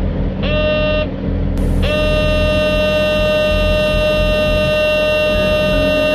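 A horn sounding: a short blast about half a second in, then a long steady blast from about two seconds in, each sliding up slightly in pitch as it starts. Underneath is the steady low rumble of a running engine.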